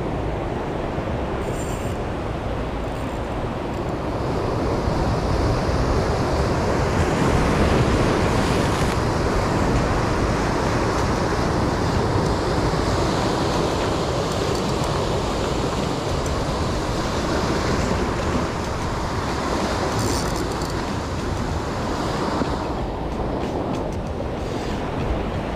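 Ocean surf breaking and washing over the rocks, a continuous rushing noise with heavy low rumble that swells louder about five seconds in.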